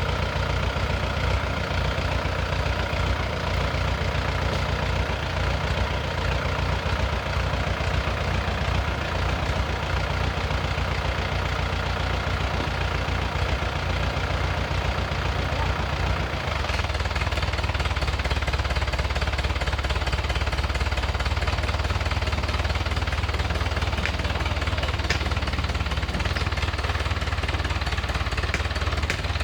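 Drilling rig's engine running steadily with a knocking, clattering note; its low tone shifts slightly about halfway through.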